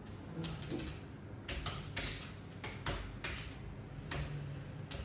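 Computer keyboard keys being pressed one at a time in slow, uneven typing: a handful of separate clicks a fraction of a second to a second apart.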